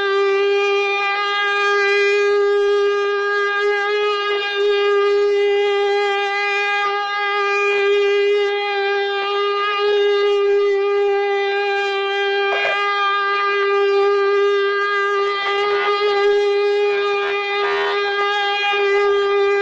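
Ox-cart's wooden wheel and axle creaking in one long, unbroken high-pitched screech, a steady tone rich in overtones, with a few short scraping changes in the second half.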